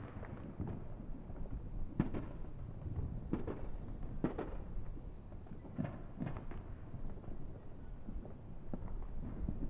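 Fireworks going off: about half a dozen scattered pops and bangs over a low rumble, with a steady high cricket trill behind them.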